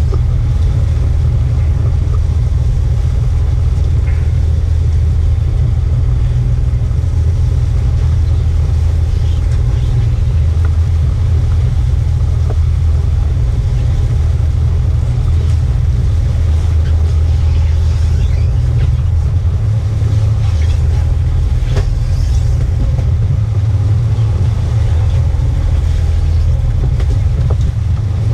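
A fishing boat's diesel engine running with a steady low drone, with a few faint knocks from work on deck.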